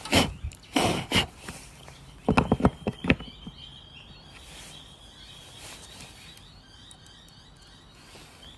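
Concealed cabinet hinge and screws being handled and set against the cabinet door: a run of clacks and knocks through the first three seconds, then a faint high steady tone.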